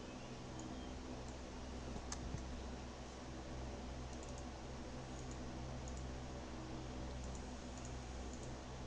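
Scattered faint clicks of a computer keyboard and mouse over a steady low hum, with one sharper click about two seconds in.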